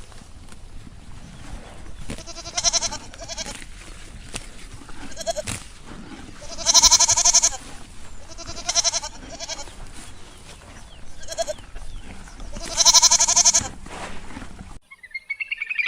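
Bleating livestock, about six separate quavering bleats, the loudest two about seven and thirteen seconds in. The sound cuts off shortly before the end.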